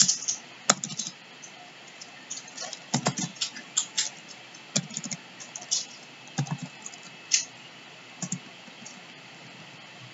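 Typing on a computer keyboard: irregular keystrokes in short runs with pauses between.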